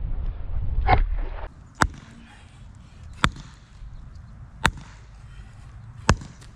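A sledgehammer swung one-handed strikes the top of a wooden stake four times, about a second and a half apart, each blow a sharp crack.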